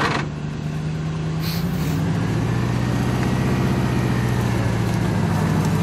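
An off-road 4x4's engine runs steadily, its note dropping to a lower pitch about two seconds in. There is a brief hiss about a second and a half in.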